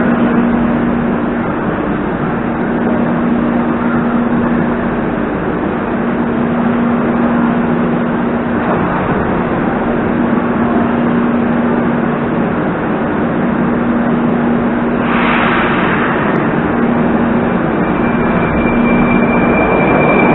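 Moscow Metro train standing at the platform, its equipment giving a steady low hum over a constant rumble. About fifteen seconds in there is a short hiss, and near the end a high steady whine comes in as the train starts to pull away.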